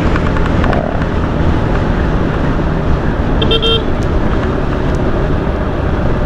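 Steady rumble of wind and road noise from riding a motorcycle, picked up by a helmet-mounted action-camera microphone with a homemade wind cover. A vehicle horn toots briefly about three and a half seconds in.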